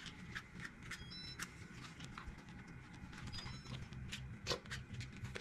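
Scattered light clicks and taps of small objects being handled, over a low steady hum.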